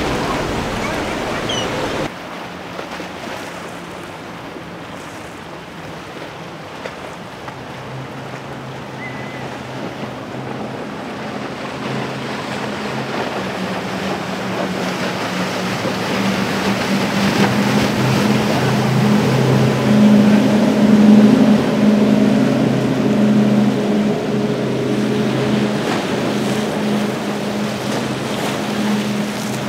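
Outboard motors of center-console boats running at speed, a steady drone that grows louder to a peak about two-thirds of the way through and then eases off. Under it are the rush of spray and wake and wind noise on the microphone.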